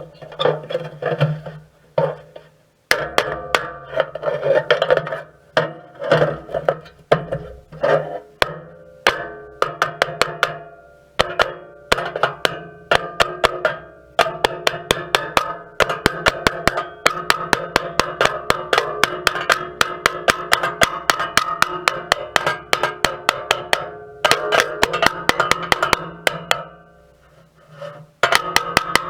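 Hammer blows on the steel of a feeder bucket, knocking a bent metal piece into place from the inside. Each strike rings, and the blows come in quick runs with short pauses between them.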